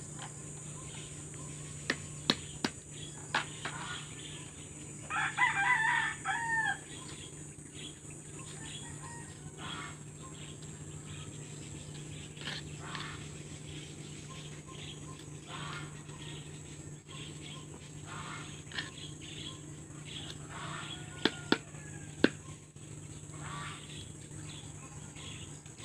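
A rooster crows once, about five seconds in, a single call of under two seconds. A few sharp clicks or taps sound a couple of seconds in and again about twenty seconds in, over steady faint background noise.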